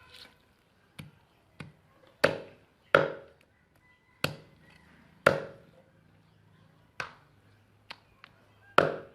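Cleaver chopping through chicken on a chopping board: about nine irregular strikes, the heaviest around two, three, five and nine seconds in, each with a short ring.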